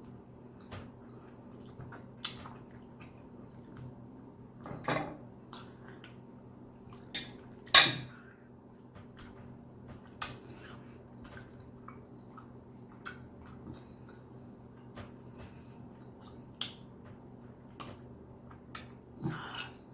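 Knife and fork clicking and clinking against a plate at irregular moments, the loudest clink about eight seconds in, over a faint steady low hum.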